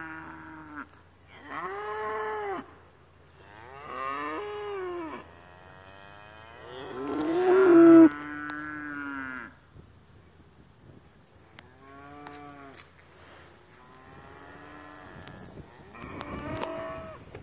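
Cattle mooing repeatedly: about seven long calls, spaced a second or two apart. The longest and loudest comes about eight seconds in, and the later calls are fainter.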